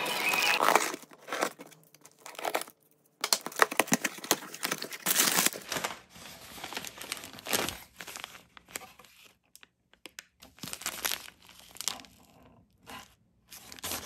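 Crinkling and tearing in irregular bursts, with short quiet gaps between them.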